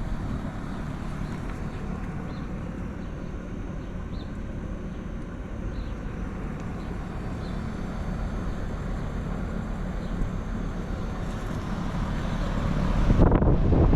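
Several Hitachi 4-ton heat pump outdoor units running in cooling mode: a steady fan and compressor hum with a low drone. Near the end, wind buffets the microphone with a loud rumble that swamps the hum.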